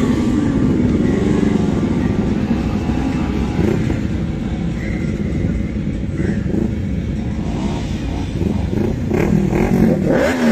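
Motorcycle and car engines running in a crowded street caravan, with engines revving up and down near the end.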